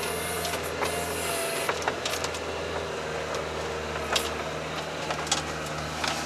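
All-terrain vehicle's engine running steadily under load as it climbs a hill, with a few scattered knocks and rattles over rough ground.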